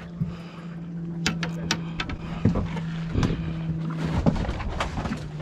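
Boat engine idling with a steady low hum that drops out briefly about four seconds in. Sharp knocks and clatter sound on deck, several of them close together between one and two seconds in.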